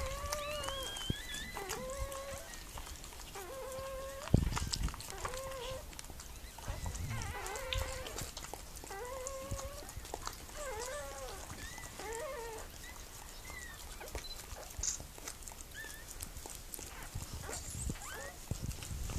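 Newborn puppy crying in a run of short, high squeaks, about one a second, thinning out toward the end.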